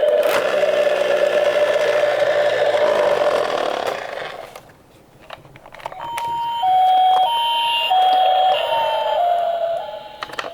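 A steady tone over a noisy rolling sound, which fades out about four seconds in. Then, about six seconds in, a Japanese ambulance two-tone siren starts, the 'pee-poh' alternating between a higher and a lower note about every half second.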